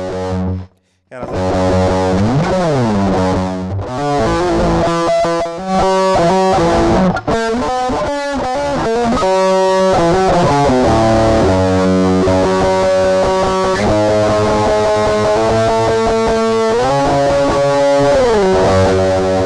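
Electric guitar played through a Boss GT-1 multi-effects processor on a heavily distorted metal patch. A first chord is cut off after under a second, then sustained distorted chords and riffs follow, with pitch bends about two seconds in and again near the end.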